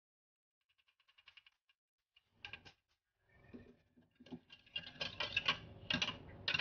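Metal spoon stirring a liquid egg-and-milk mixture in a plastic measuring jug, knocking against the sides in light clicks. The clicks are scattered and faint at first, then come fast and louder near the end as the stirring speeds up.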